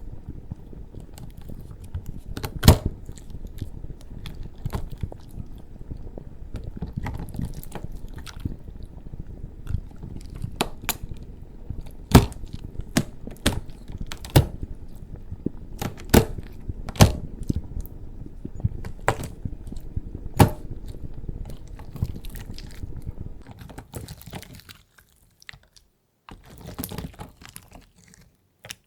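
Irregular sharp clicks and crackles from the handmade lava keyboard (slime and wax-cracking ASMR) being pressed and cracked, over a steady low rumble of a lava sound effect. Near the end the rumble fades out, leaving a few softer crackles.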